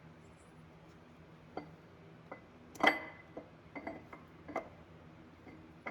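A series of metallic clinks and knocks from steel transmission parts and tools being handled, about six in a few seconds. The loudest, about three seconds in, rings briefly.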